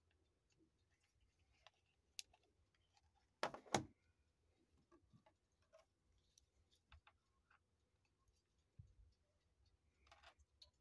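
Quiet handling noises: scattered small clicks, and a pair of louder knocks about three and a half seconds in, as hard objects such as a watch and measuring tools are handled on a tabletop.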